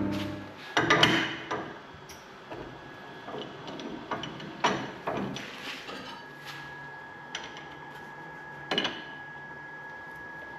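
Scattered knocks and metallic clinks of tools and wood being handled at a lathe, after a loud rasping cutting noise stops right at the start. A faint steady hum comes in about six seconds in.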